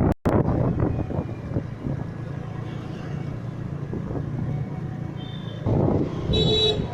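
Heavy rain and strong gusting wind, a steady rushing noise with a low rumble; a louder gust comes near the end, carrying a short high-pitched tone.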